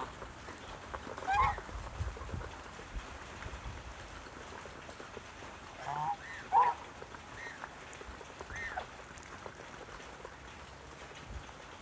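Lionhead geese honking in a handful of short, separate calls: one about a second in, then a cluster of four or five between six and nine seconds in.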